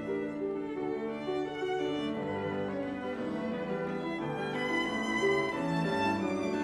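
Classical music on bowed strings, led by a violin, with held lower notes underneath.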